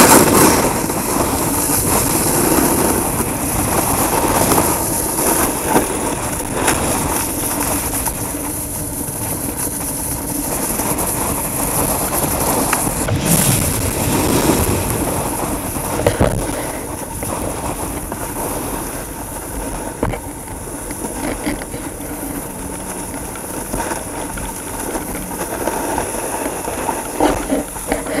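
A snowboard running down a packed snow slope: a steady rumbling scrape of the board on the snow. It eases off in the second half as the rider slows, with a few louder bumps near the end.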